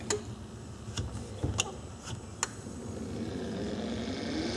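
Electric trolling motor (Minn Kota Traxxis 70) on a test run, running low and faint after winding down, with several sharp clicks. From about three seconds in, it speeds back up and its hum rises in pitch.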